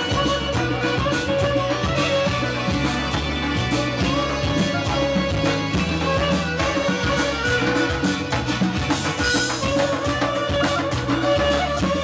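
Live folk dance music: a clarinet plays the melody over the steady beat of a hand-struck frame drum, with low sustained notes beneath that change every so often.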